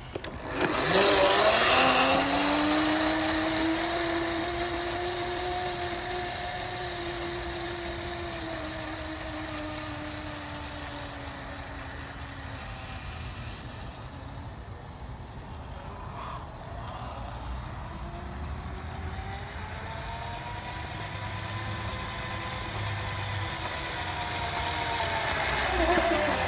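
Razor E200 electric scooter's motor whining as it sets off, its pitch sagging and fading as it rides away. It then comes back, the whine rising and growing louder as it approaches.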